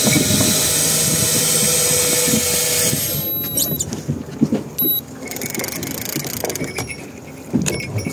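Electric fishing reel motor winding in line with a steady whine, stopping about three seconds in; scattered knocks and rattles follow.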